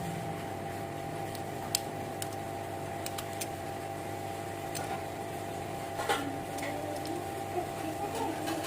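Small electric motor of a homemade mini aquarium powerhead pump running steadily with a constant whine and hum, with a few light clicks and small knocks near the end.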